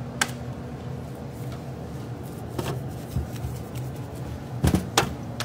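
Potatoes and corn being handled and stuffed into pantyhose for a crawfish boil: a few scattered knocks and clunks, the two loudest close together near the end, over a steady low hum.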